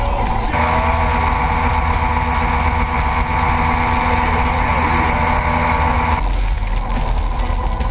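Moped engine running steadily at cruising speed, with wind rush on the microphone. The engine note changes abruptly about half a second in and again about six seconds in.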